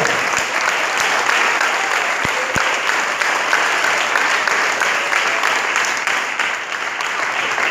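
A congregation applauding steadily in a large hall, many hands clapping together.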